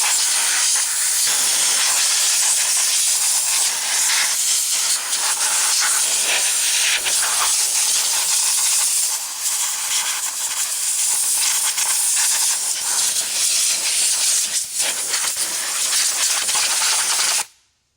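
Compressed-air blow gun blowing out a part: a loud, steady hiss of air that wavers slightly and cuts off suddenly near the end.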